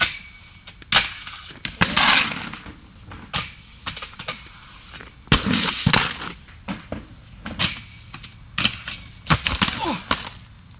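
Aggressive inline skates clacking and scraping: a string of sharp impacts, roughly one a second, with scrapes between some of them.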